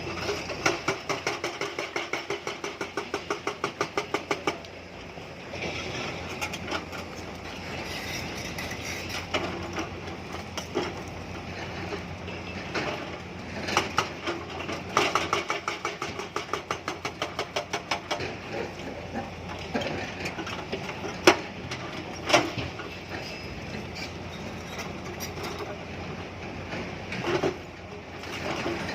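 Tata Hitachi excavator's hydraulic rock breaker hammering stone in runs of rapid blows, about five a second, at the start and again past the middle, over the steady run of the excavator's diesel engine. Two sharp single knocks come a little after the second run.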